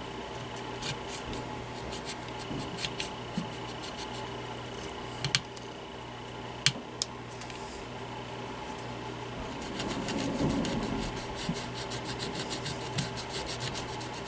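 Hands working on plastic fan parts: rubbing and scraping, with a few sharp clicks about five and seven seconds in, then a run of quick small ticks near the end.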